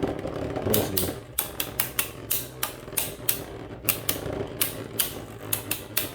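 Two Beyblades, one of them a 3D-printed top, spinning in a plastic stadium with a steady whirr. They clack sharply against each other and the stadium wall many times, at an irregular pace of about three or four hits a second.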